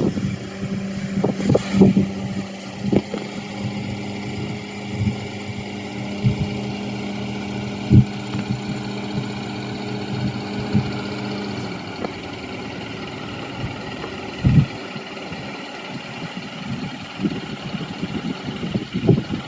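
An engine idling steadily, then stopping about twelve seconds in, with scattered knocks and thumps.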